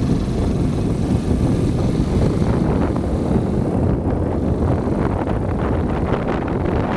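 Wind rumbling on the microphone of a motorcycle being ridden on a forest track, a steady low noise with no clear engine note above it.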